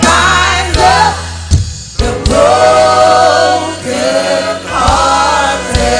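Choir of men and women singing a slow gospel worship song, holding long notes over a steady low instrumental backing; the line being sung is 'And He binds up the broken hearted'.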